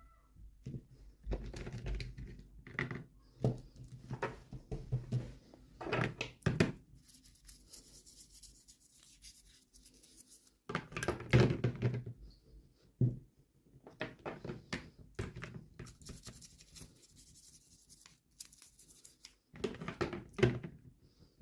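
Toy packaging being opened and handled by hand: irregular knocks and taps, plastic rustling and tearing, with longer stretches of high rustling about eight seconds in and again around sixteen seconds in.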